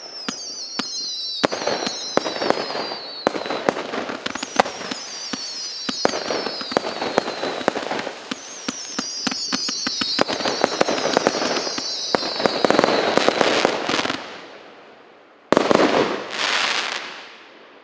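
A 0.8-inch, 186-shot consumer firework cake firing rapid shots: sharp bangs, with whistling tails that waver and fall in pitch. The shots fade out about 14 seconds in, then two loud bursts go off near the end and die away.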